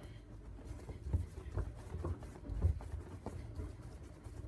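Hands rolling and pressing a log of beetroot dough on a countertop: a series of soft, dull thumps and pats, roughly two a second and unevenly spaced.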